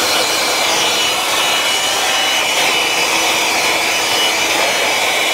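Handheld electric blower running at full speed: a loud rush of air with a steady high whine, blowing packing-peanut dust out of a CB amplifier's open chassis.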